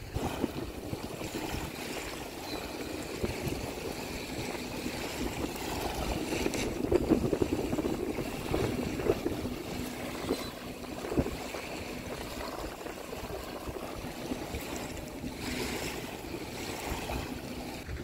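Small waves lapping and splashing at the shoreline, with a faint steady hum underneath.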